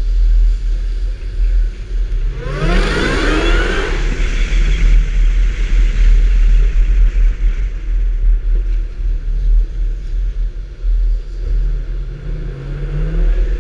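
Supercharged 4.6-litre four-valve V8 of a 2003–04 Ford SVT Mustang Cobra 'Terminator' revved hard once, its pitch climbing quickly about two to four seconds in before dropping back to a rumbling idle. A smaller rev comes near the end.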